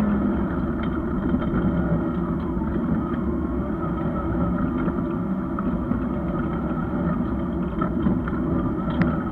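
Rally-prepared Škoda Felicia heard from inside the cabin, its engine running hard as it drives over a rough dirt track. Short sharp knocks and rattles come through the body, several near the end.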